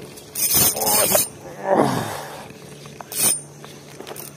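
A cast with a spinning rod: a rushing hiss as the rod swings and the line pays out, starting about half a second in. About two seconds in, a man's voice gives a falling, groan-like exclamation. There is a short hiss near the end.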